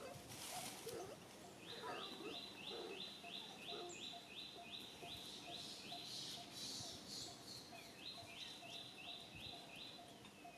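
Outdoor wildlife call: a rhythmic, pulsing call repeated about two and a half times a second, which breaks off and starts again near the end, with faint scattered chirps.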